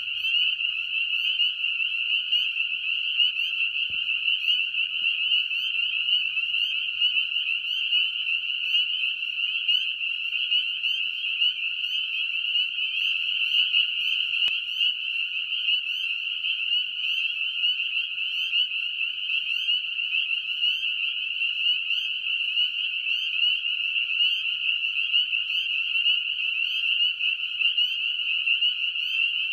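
Dense, steady chorus of spring peepers: many frogs giving high, piping peeps that overlap into one continuous shrill.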